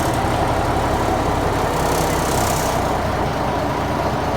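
Engine of a fish-feed grinding machine running steadily at an even speed.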